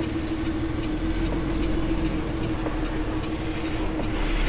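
Semi-truck's diesel engine running steadily, heard inside the cab as an even hum with one constant tone, and a few faint ticks.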